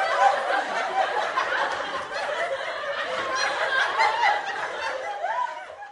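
Crowd of people laughing together, many voices at once, fading out near the end.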